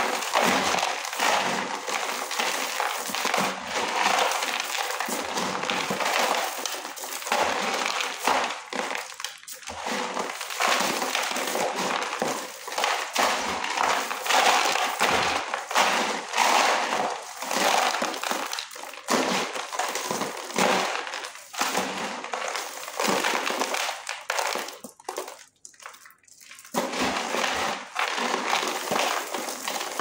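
Dry khadi mitti (white chalk clay) chunks being squeezed and crumbled by hand in a plastic basin: continuous gritty crunching and crackling as the chunks break into flakes and powder, with a brief pause near the end.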